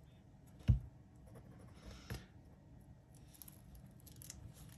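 Quiet handling of a phone battery cell and a small pointed tool on a workbench mat. There is one sharp tap a little under a second in, a softer one about two seconds in, and light clicks after that.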